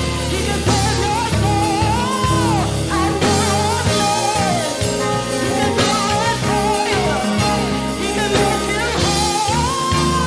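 Gospel music: a band with drums and bass under a sliding, ornamented melody line, with singing.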